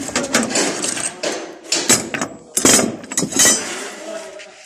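Close handling noise: clattering knocks, scrapes and rustles right at the microphone, with sharp knocks about two, two and a half and three and a half seconds in, fading near the end.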